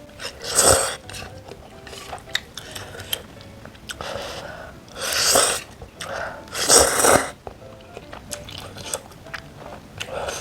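Close-miked eating sounds: three loud, noisy mouthfuls, one about a second in and two close together in the middle, with small wet chewing clicks between them, over faint background music.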